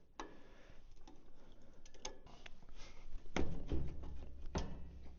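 Scattered light clicks and taps of hands working the choke linkage on a carburetor, with two heavier knocks about three and a half and four and a half seconds in.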